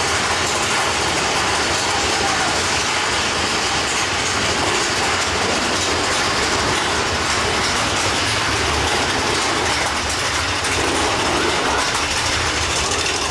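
Mine-train roller coaster cars running along the track, a loud, steady noise of the train in motion.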